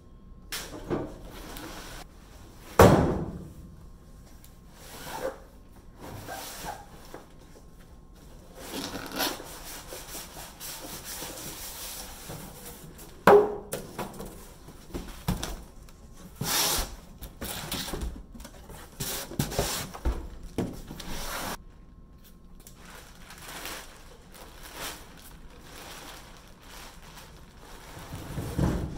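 Cardboard packaging and plastic wrap being pulled off a boxed machine stand, with irregular scraping and rustling. Scattered knocks and two loud thumps come about three seconds in and again near the middle.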